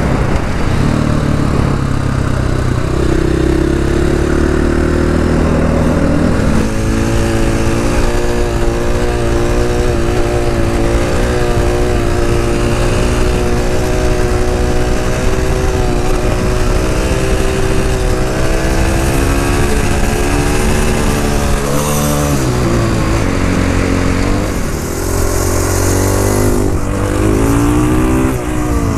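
KTM 500 EXC supermoto's single-cylinder four-stroke engine under way, its note holding steady for stretches, dropping and climbing again about three quarters of the way through, and revving up in repeated rising pulls near the end.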